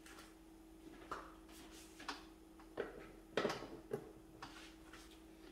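Faint scattered clicks and light knocks of a monitor power cable and plug being handled, a handful of them, over a steady faint hum.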